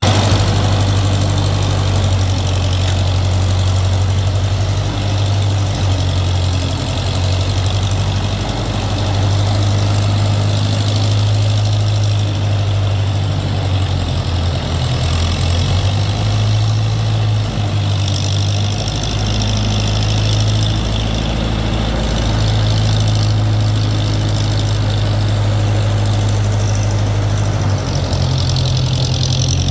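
Engine of a Case backhoe idling steadily, a low even hum that holds its pitch with small wavers.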